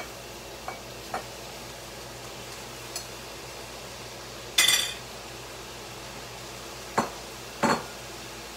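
Kitchen clatter at the stove: a few light clicks, then about four and a half seconds in a short, loud scraping clink as chopped meat is tipped from a glass bowl into the pan. Two sharper knocks follow near the end.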